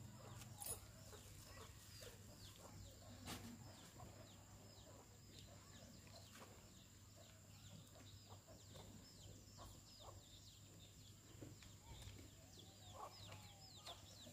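Faint chirping of chickens: many short, high, falling peeps repeating irregularly, over a low steady hum.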